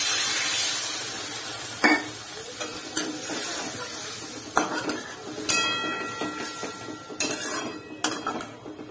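Water poured into a hot kadai of frying onion-tomato masala, added because the masala has turned dry, hisses loudly at once and keeps sizzling, fading over the next few seconds. A metal spatula stirs and scrapes through the masala, with several sharp knocks against the pan.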